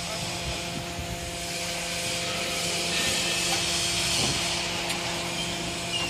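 Hydraulic power unit of a Y81 scrap-metal baler running: a steady motor-and-pump hum under a hiss that grows louder in the middle.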